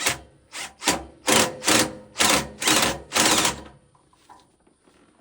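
Hose clamp on a water-well pipe being tightened with a hand tool: about eight short rasping strokes, roughly two a second, stopping after three and a half seconds.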